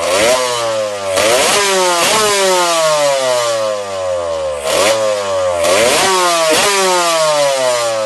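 Small engine revved in quick throttle blips about six times. After each blip its pitch rises sharply, then falls slowly and steadily as it winds down, as if spinning freely on low-friction high-RPM bearings.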